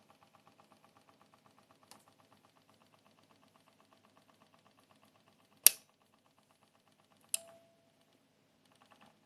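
Seasonic Focus GX-750 power supply making a rattling noise, a faint even ticking of about five ticks a second that slows and fades out about five seconds in; the rattle is a fault the unit was later replaced under warranty for. Then a loud sharp click, and a second click with a brief tone about a second and a half later.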